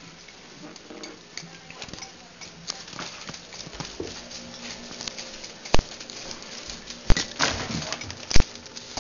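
Dog's claws clicking and pattering on a wooden floor as the corgi moves about, with three sharp, loud knocks in the second half.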